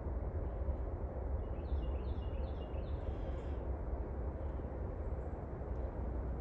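Hand drill fire by friction: a sweet gum spindle spun between the palms against a wooden hearth board, giving a steady rubbing noise. About two seconds in, a bird calls four short falling notes.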